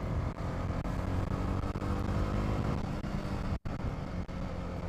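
Motorcycle engine running steadily under way, with road and wind noise; the sound drops out for an instant about three and a half seconds in.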